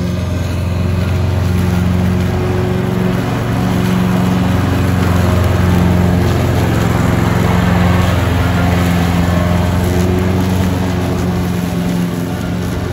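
Husqvarna riding lawn tractor's engine running steadily with the blades cutting dry grass, louder as it passes close about six seconds in and easing off as it drives away near the end.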